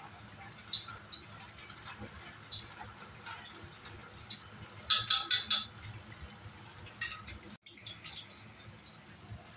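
Oil crackling and popping as battered pieces deep-fry in a wok, with a quick cluster of four or five louder, sharp clicks about five seconds in. The sound drops out for an instant near the end, then the crackle goes on more quietly.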